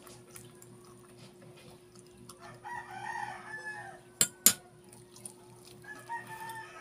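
A rooster crowing twice: a call of about a second, starting about two and a half seconds in, and a shorter one near the end. Two sharp clicks come close together about four seconds in.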